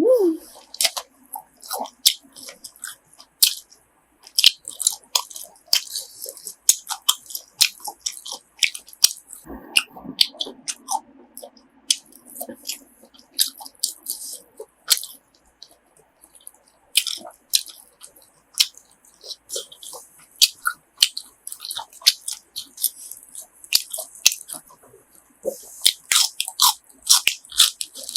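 Close-up eating sounds of grilled pork offal being chewed: many irregular crisp crunches and wet mouth clicks, one after another.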